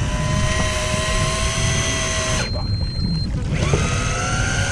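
Electric fishing reel winding in a deep-drop rig with a steady motor whine over a low rumble. The whine cuts out about two and a half seconds in and starts again about a second later, rising in pitch as it picks back up.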